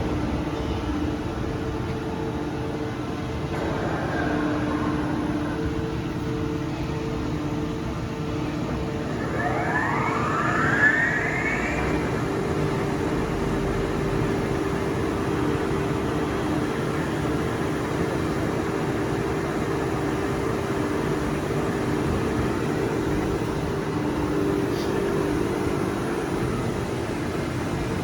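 Droop & Rein CNC bed milling machine running with a steady hum. About nine seconds in, a whine rises in pitch for some three seconds as the spindle runs up in speed, after which the machine runs on at a new steady pitch.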